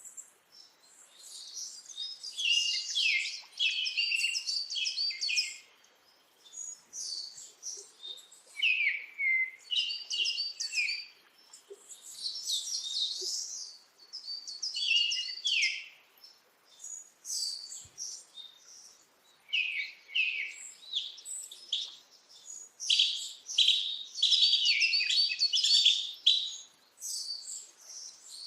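Small birds chirping in quick runs of high notes, phrases of a second or two with short pauses between them.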